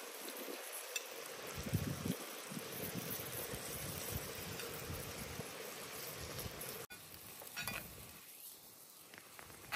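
Chicken legs frying in a pan: a steady sizzle with scattered low knocks. About seven seconds in it cuts off abruptly, leaving a quieter hiss with a couple of faint clicks.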